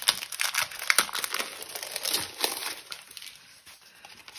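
Clear plastic packaging sleeve crinkling and crackling as it is opened and the paper sheets are slid out. The crackles are busiest in the first two seconds or so and thin out toward the end.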